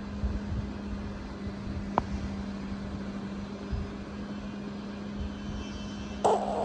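Steady low mechanical hum with one constant tone, like a running appliance or fan. A single sharp click comes about two seconds in, and a sudden loud rasping noise starts just before the end.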